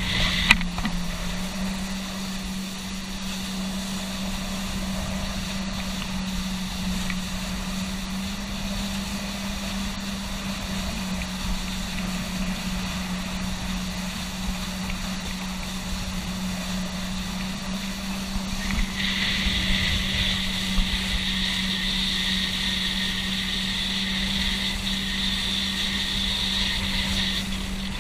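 Motorboat engine running steadily at speed, a constant hum, with wind and rushing water around it. A brighter hiss comes in about two-thirds of the way through and holds.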